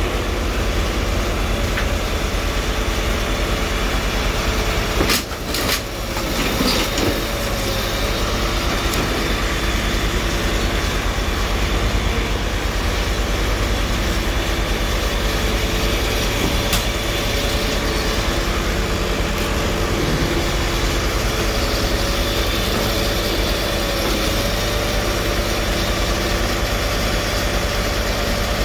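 Car crusher's engine running steadily, a low even drone with a faint steady whine over it. A couple of sharp knocks about five seconds in.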